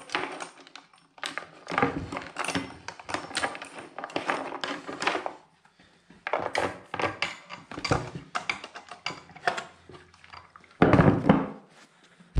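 Steel chainsaw chain rattling and clinking link against link as it is handled and worked off the saw's bar. A heavier metal clunk comes near the end as a part is set down.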